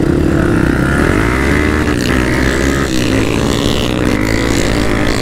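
Trail motorcycle engine running under load, its pitch rising and falling as the throttle is worked.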